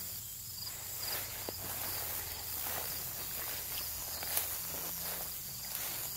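Footsteps through overgrown brush and grass, irregular and soft, over a steady chorus of insects with a rhythmic high chirping that fades early on.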